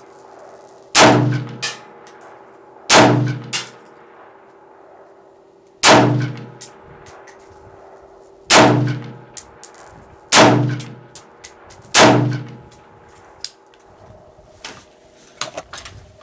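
High Standard HSA-15 AR-15 rifle firing 5.56 NATO rounds: six single shots spaced about two to three seconds apart, each with a short ring after it and a lighter click. A few light clicks near the end as the rifle is handled.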